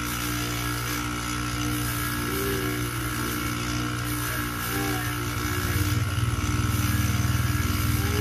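Electric polishing motor running steadily with a spinning buffing wheel, buffing a watch case held against it. The hum grows louder, with a fast flutter, about six seconds in.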